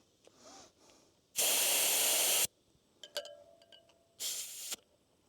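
Compressed air hissing out of a motorcycle tyre valve in two bursts, the first about a second long and the second about half a second. Small clicks and a short steady tone come between them.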